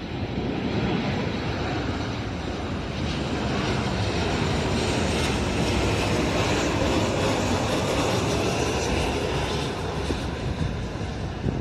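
Jet airliner passing, its engine noise a steady roar that swells a little in the middle.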